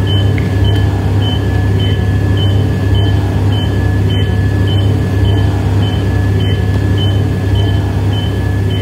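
Recorded soundscape played through a stage loudspeaker: a loud steady low drone under a held high tone, with short high electronic beeps repeating evenly about twice a second.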